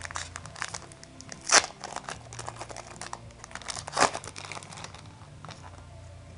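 Foil Pokémon trading-card booster pack crinkled and torn open by hand: a steady crackling rustle of the wrapper, with two louder rips about one and a half and four seconds in.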